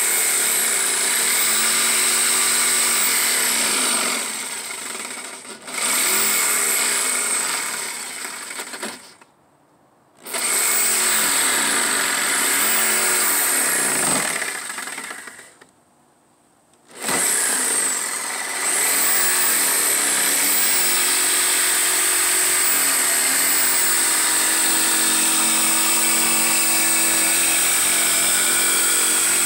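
Corded Ridgid jigsaw cutting a curved line through a wood panel, its motor running with the blade chattering through the wood. It slows about four seconds in, then stops and starts again twice, and runs steadily for the last third.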